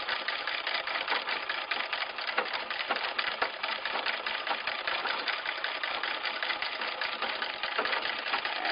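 An 1898 New Home treadle sewing machine stitching, its needle and shuttle mechanism making a rapid, steady clatter of clicks as it is driven by foot through a duct-taped belt.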